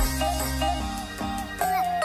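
Electronic background music: a melody of held synth notes over a sustained bass.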